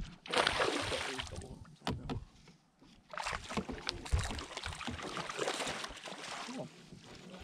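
Hooked smallmouth bass splashing at the surface beside a boat as it is played to the net, in two bouts, the second starting about three seconds in and lasting longer.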